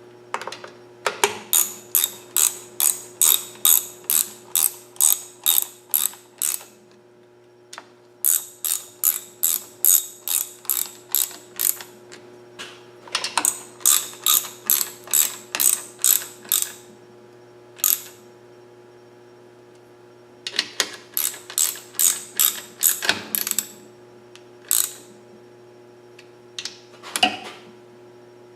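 Hand ratchet wrench clicking in runs of quick back-and-forth strokes, about three clicks a second, with short pauses between runs.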